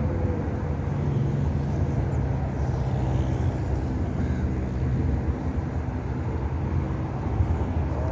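Steady low engine drone with a thin high whine throughout.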